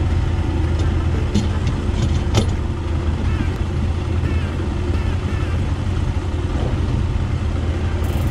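Boat's outboard motor running steadily, a low even drone, with a couple of sharp clicks about one and two seconds in.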